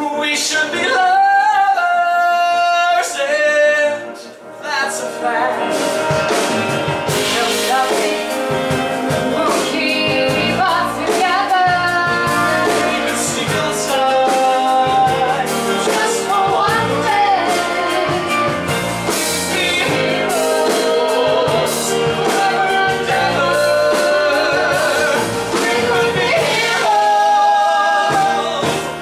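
A man and a woman singing a love-song duet in long, held notes with vibrato, over band accompaniment that fills out with bass about five seconds in.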